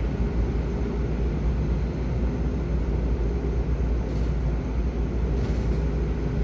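Interior running noise of a Keio 5000-series electric train: a steady, even low rumble with no break or change.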